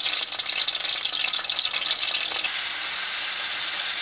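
Beef pieces and beef fat frying in ghee in a steel karahi: a sizzling hiss with fine crackling. About two and a half seconds in, the sizzle jumps suddenly louder and steadier.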